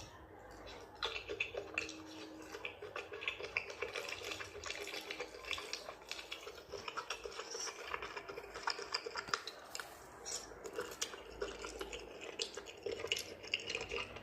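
Wet eating sounds: a dense run of irregular smacks, clicks and squelches of chewing and licking soft seafood.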